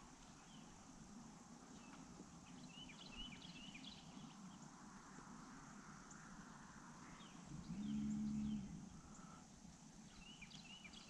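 Faint lakeside ambience with small birds chirping in short bursts, and a low pitched hum lasting about a second partway through, the loudest sound.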